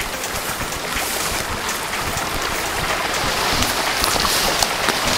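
Brush and clothing rustling with footsteps as people push through thick vegetation, over a steady hiss that grows slightly louder toward the end.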